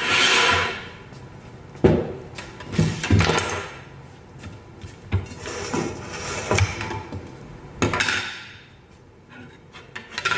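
Handling clatter of a plastic hand-crank vegetable spiralizer and its green plastic blade plates on a wooden table: several sharp knocks and thuds with scraping and sliding noises in between.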